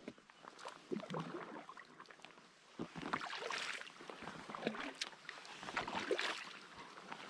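Double-bladed paddle pulling a packraft through calm water, one side then the other: a splash and swirl at each stroke, with water dripping and trickling off the raised blade.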